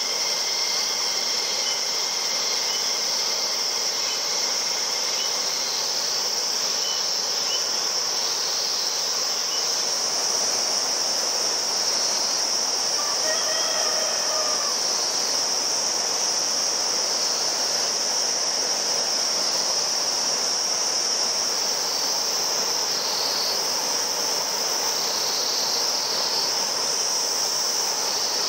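Dense chorus of insects, a continuous shrill high-pitched ringing with no breaks, over a steady rushing noise. A brief faint pitched call sounds about halfway through.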